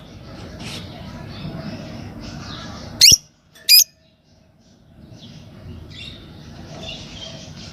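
Green Fischer's lovebirds chattering and chirping, with two loud, shrill calls about three seconds in, under a second apart, followed by a short lull before the chatter resumes.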